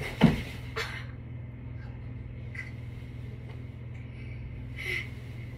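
A brief loud thud just after the start, then the steady low hum of a spinning ceiling fan, with a faint short rustle near the end.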